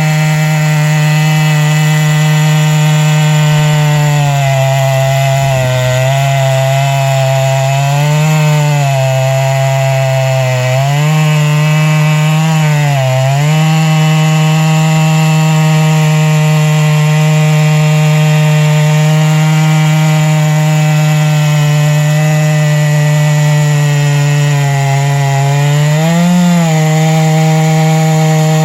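Two-stroke chainsaw held at full throttle, ripping along a log on a chainsaw mill. The engine note stays high and steady and sags briefly several times as the cut loads it, mostly in the first half and again near the end.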